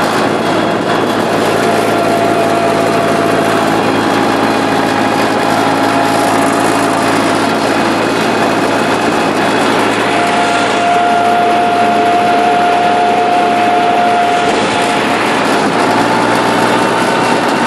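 IMT 558 tractor's diesel engine running steadily as the tractor drives along a road, a constant mechanical drone. A thin high whine comes up over it for a few seconds in the middle.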